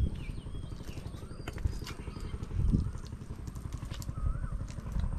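Footsteps on soft mangrove mud with low, rumbling handling noise and irregular thuds, the loudest a little under three seconds in. A few short whistling bird calls sound over it.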